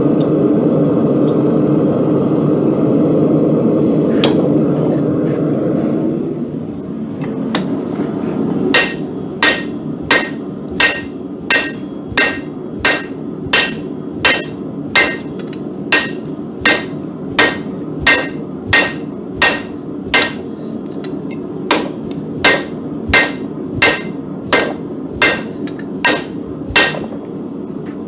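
Hand hammer striking hot steel on an anvil, drawing out the shank of a hardy tool: evenly paced blows about one and a half a second, each with a bright ring, starting about nine seconds in. Before them, a steady rushing noise fades out about six seconds in.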